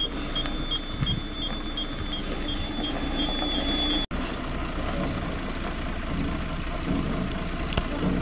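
The Mercedes-Benz Actros 3340 tipper's V6 turbo-diesel runs steadily with its body raised, over a high warning beep about three times a second. Halfway through the first stretch the beep turns into one continuous tone, and the sound cuts off abruptly about four seconds in. The diesel then runs on unevenly while the truck moves forward with the body still up.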